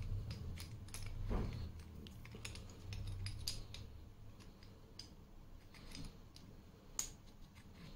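Allen key turning the CO2 cylinder screw in the grip of an Umarex Beretta M9A3 air pistol, tightening it to lock in a 12-gram CO2 cylinder: faint, scattered metallic clicks and scrapes.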